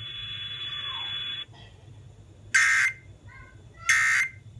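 Emergency Alert System end-of-message data bursts over FM radio: two short, loud screeching bursts of digital tone, about a second and a half apart, closing out the alert. Before them a steady radio hiss cuts off about a second and a half in.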